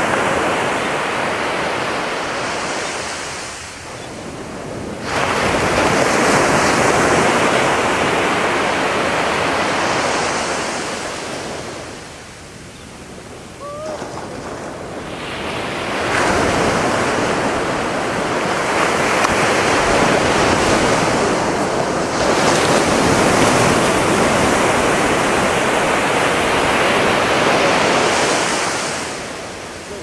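Ocean surf breaking and washing up a sandy beach, coming in surges. The wash swells sharply about five seconds in and again around sixteen seconds, with quieter lulls between, and eases off near the end.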